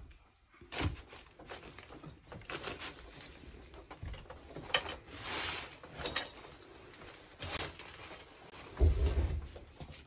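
A person clambering in through a window into a wooden room: scattered knocks and scrapes against the frame and walls with rustling of clothes, and a heavier low thump near the end.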